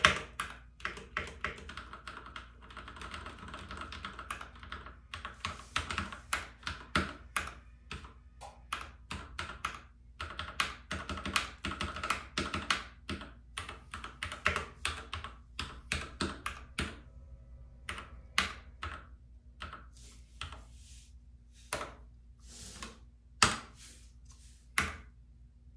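Typing on a Keychron C2 full-size mechanical keyboard with Keychron brown tactile switches: a quick, uneven patter of keystrokes with a couple of short pauses, not very loud.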